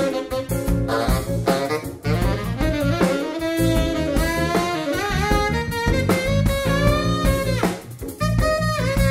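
Live jazz-funk band: a tenor saxophone plays a melodic line over a drum kit and the rest of the band.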